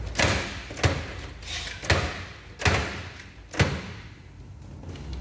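Rummaging off-camera for a vernier caliper: five sharp knocks and thuds, roughly a second apart, as drawers and tools are shifted about.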